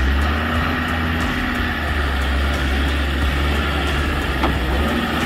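Land Rover Discovery 2 engine running at low revs under load as the four-wheel drive crawls through deep sandy ruts, a steady low rumble.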